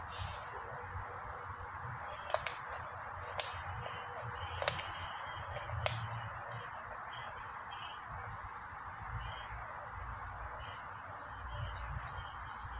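Steady high-pitched insect trill, with four sharp clicks between about two and six seconds in.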